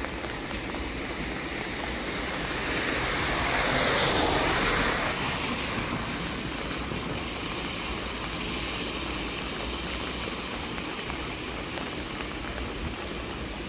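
Steady hiss of rain, with a vehicle passing on the wet road: its tyre noise swells to a peak about four seconds in, then fades.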